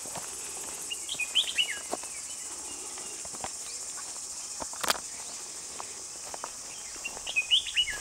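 A songbird sings the same short phrase of quick, sliding notes twice, about six seconds apart, over a steady high insect drone. A single sharp click comes about halfway through.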